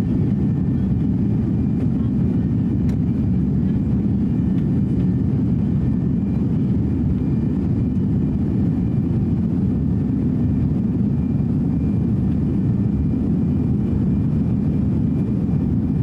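Steady jet engine and airflow noise inside the passenger cabin of an Airbus A330-300 climbing after takeoff: a dense low rumble that holds level throughout.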